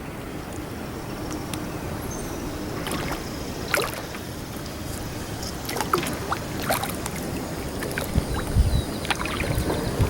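Kayak paddling in shallow, rocky river water: a steady wash of moving water with scattered sharp paddle splashes and knocks, and a few dull low thumps near the end.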